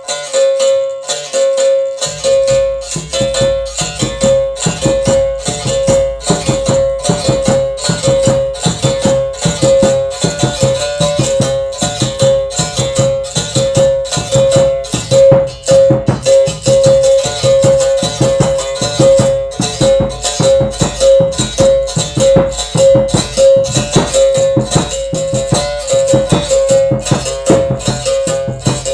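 Berimbau played in a steady rhythm: one bright twanging note struck over and over, with a caxixi-style shaker rattling along with the strokes. A low, deep sound layer comes in about two seconds in.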